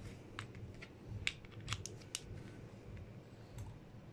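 A handful of faint, sharp metal clicks and taps, the loudest about a second in, as the parts of a Cometa Lynx PCP air rifle regulator are handled and fitted back together on a pressure-test gauge.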